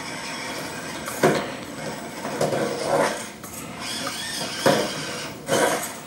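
Axial SCX24 Jeep Gladiator micro RC crawler knocking and clattering against a plywood ramp as it struggles to climb, its wheels lifting and the truck dropping back. Sharp knocks about a second in and twice near the end, with a rattling patch in between.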